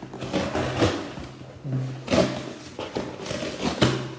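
Cardboard shipping box being cut and torn open by hand, with crackling and ripping cardboard and a few louder rips.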